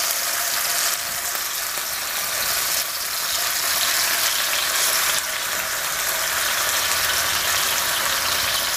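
Spice-marinated tilapia fillets shallow-frying in hot grapeseed oil in a skillet over medium-low heat: a steady, dense sizzle as more fillets are laid into the pan.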